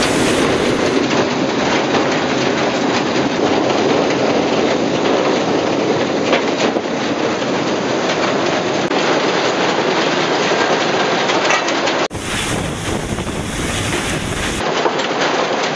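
BR Standard Class 9F steam locomotive running, heard from the footplate: a loud, steady rumble of wheels, motion and wind with no clear beat. The sound changes abruptly about twelve seconds in and again near the end.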